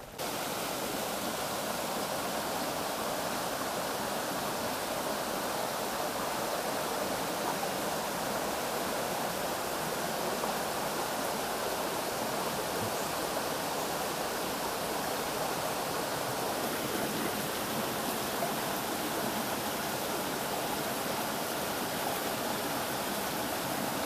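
Shallow rocky river running over stones: a steady, even rush of water.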